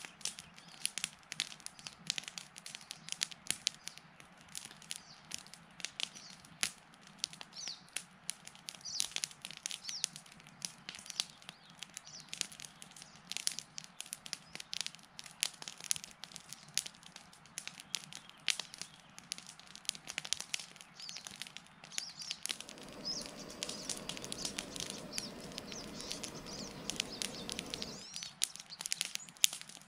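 Wood campfire crackling and popping, with birds chirping now and then. Late on, a steady rushing noise joins for several seconds and then cuts off suddenly.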